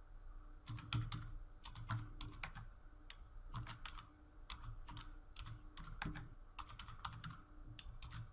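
Typing on a computer keyboard: a run of uneven key clicks.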